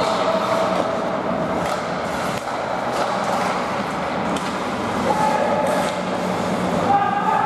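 Ice hockey game play in a rink: skates scraping the ice and sharp stick-and-puck clacks over a steady low hum.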